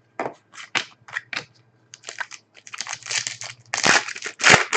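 A trading-card pack wrapper crinkling and tearing as it is opened: a few short crackles, then a dense crinkle that is loudest near the end.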